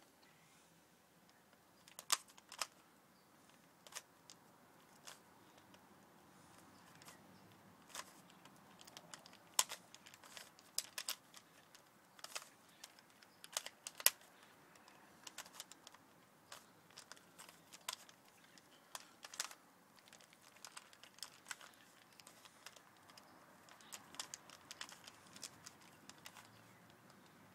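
Plastic 3x3 Rubik's cube being turned by hand: irregular clicks and clacks as its layers rotate, some coming in quick runs of several turns.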